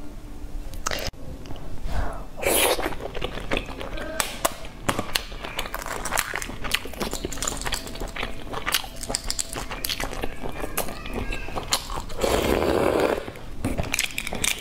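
Cracked shells of hard-boiled eggs being peeled by hand close to the microphone: a dense run of small crackling clicks. Two louder, longer rushes of noise come about two and a half seconds in and again near the end.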